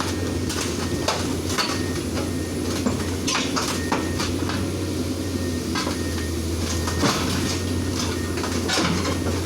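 Excavator's diesel engine running steadily, with frequent sharp metallic clanks and knocks over it.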